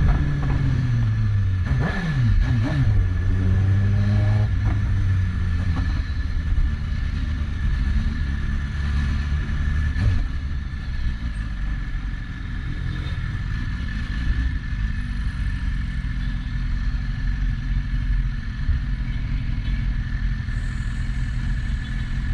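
BMW S1000RR inline-four superbike engine: revs fall, blip sharply up and down about two seconds in, climb gently for a couple of seconds, then settle into a steady low rumble.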